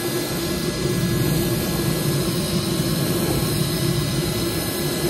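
TIG welding arc from a Tooliom TL-200T high-frequency inverter welder burning steadily on steel, a continuous buzzing hiss.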